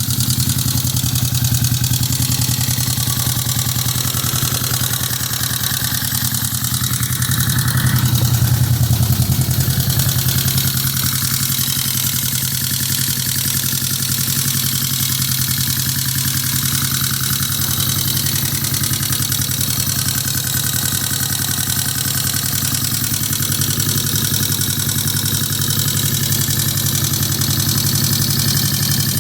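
1971 Honda CB350's air-cooled parallel-twin engine idling steadily after ten years of not running, briefly a little louder about eight seconds in.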